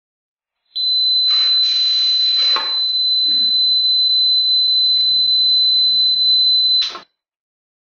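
5 V DC buzzer of an Arduino pet feeder sounding one continuous high-pitched tone for about six seconds, signalling feeding time. About a second in, dry pet food rattles and pours into the steel bowl for a second or so. The tone cuts off suddenly.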